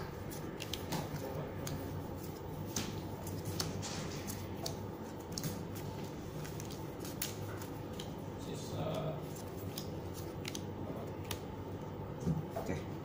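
Magic: The Gathering trading cards being handled: light, sharp clicks and snaps of card stock at irregular intervals, sometimes several a second, as cards are flicked off a hand-held stack and laid down one by one, over a steady low hum.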